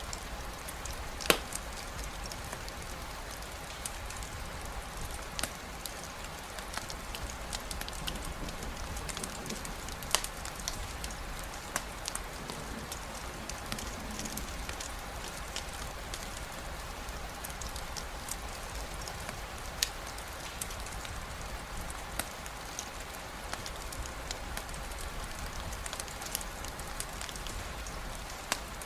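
Steady rainfall with a campfire crackling: scattered sharp pops at irregular intervals over the even hiss of the rain, the loudest pop just over a second in.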